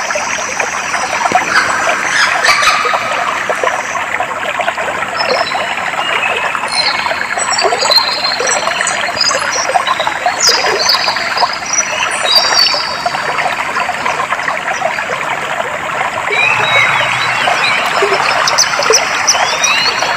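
Clear water flowing and trickling steadily over stones, with birds singing short, high whistled phrases over it, busiest in the middle and again near the end.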